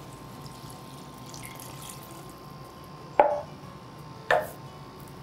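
Chicken broth poured from a glass measuring jug into a cast-iron pot of cooked chicken and vegetables, a steady liquid pour, followed by two short sharp knocks about three and four seconds in.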